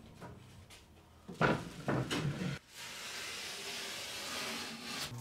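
A gypsum drywall sheet being cut to size and folded along its score line. A few sharp cracks and knocks come about a second and a half in, then a steady scratchy scraping for about two seconds.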